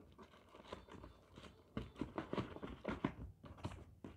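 Irregular rustling, light taps and knocks from things being handled and moved about, as shoes and their packaging are put away and the next pair fetched.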